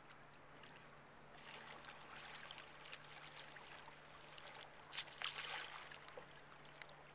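Kayak paddle strokes in calm water: a soft trickling and splashing as the blades dip and drip. It starts about a second and a half in, with the loudest splashes about five seconds in.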